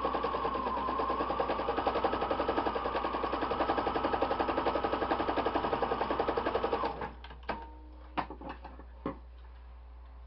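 Electric domestic sewing machine stitching a seam through a fabric dish towel, running steadily with a fast, even stitching rhythm, then stopping abruptly about seven seconds in. A few sharp clicks follow as the work is handled.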